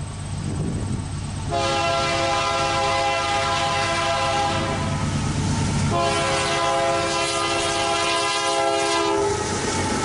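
Horn of an approaching Union Pacific diesel freight locomotive sounding two long multi-chime blasts, the second starting about a second after the first ends. Beneath them runs the low rumble of the locomotives' diesel engines.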